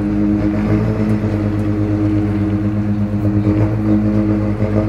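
BMC 827 truck's diesel engine running at a steady idle through a custom resonant 'singing' exhaust, giving a deep droning note.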